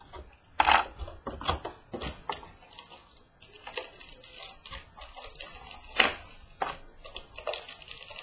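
Cardboard and wrapper handling as a box of Playbook football trading cards is opened: irregular rustling, scraping and light knocks, with two louder knocks, one under a second in and one about six seconds in.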